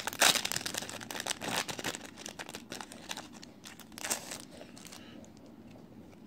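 Foil trading-card booster pack wrapper being torn open and crinkled, a dense crackling that is loudest just after the start and again about four seconds in, then dies down for the last second or so.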